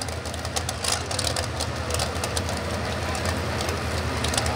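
Pro Modified four-wheel-drive pulling truck's engine idling roughly, a steady low drone broken by irregular sharp pops.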